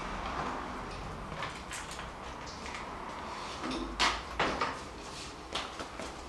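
Scattered knocks and clacks of objects being handled, the loudest about four seconds in, over a low steady rumble.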